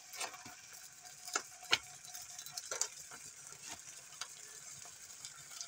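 Black Forest ham steaks sizzling faintly in melted butter in a cast iron frying pan as slices are laid in, with a scatter of short sharp clicks and pops.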